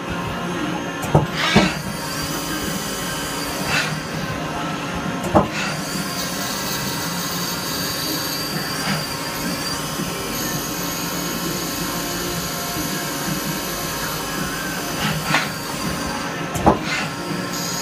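Hardinge T-42 CNC lathe running a machining cycle: a steady mechanical hum with high whining tones that come in over the middle stretch, broken by several short sharp knocks.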